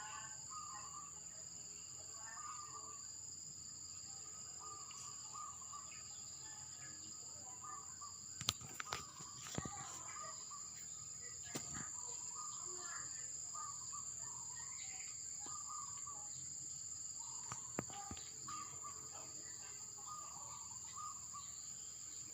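Steady, high-pitched drone of insects, with scattered short bird chirps over it and a few sharp clicks a third and three quarters of the way through.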